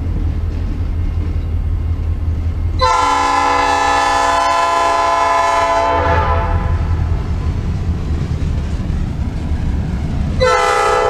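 Norfolk Southern SD40-2 locomotive's Nathan P5 five-chime air horn sounding one long blast of about three seconds, then a second blast starting near the end. Under it runs the steady low rumble of the passing train.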